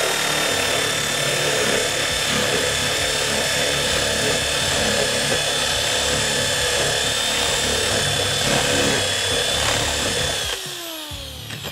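Corded electric drill boring a hole into wood with a dull bit, the motor running steadily under load with a thin high whine. Near the end it is switched off and winds down in falling pitch.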